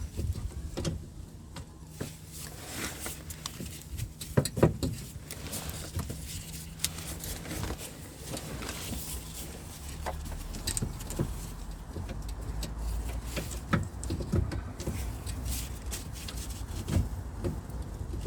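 Scattered clicks and knocks of tools and metal parts being handled while working on a car's steering rack and pipes, over a low steady hum.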